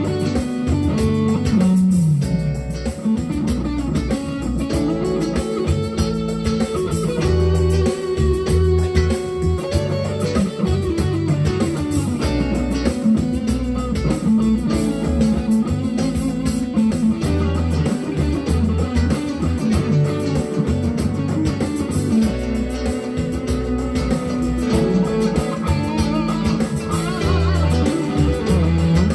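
An electric guitar, a GEARIT GST 100 Strat copy, being played through an amp in a run of single notes with some pitch bends.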